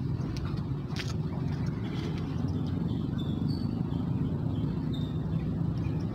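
Steady low rumble, with a sharp click about a second in and a few short high chirps near the middle.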